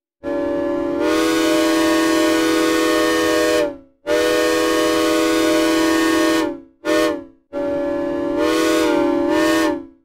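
Synthesized recreation of a Southern Pacific six-chime steam locomotive whistle, sounded dry without reverb: a chord of several steady pitches blown in four blasts, long, long, short, long, the grade-crossing signal.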